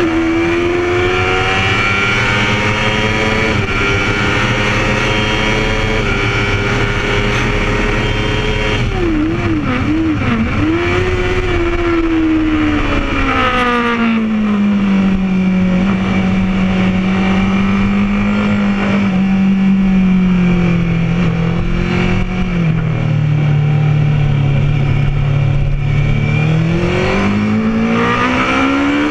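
Honda CBR1000RR inline-four engine heard onboard at racing speed, with wind rush on the microphone. The revs climb through two upshifts, waver briefly with short throttle blips, then drop sharply as the bike slows for a corner and hold low through it, before rising again under hard acceleration near the end.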